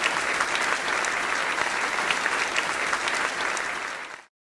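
Crowd applauding: a dense, irregular patter of many hands clapping that cuts off suddenly about four seconds in.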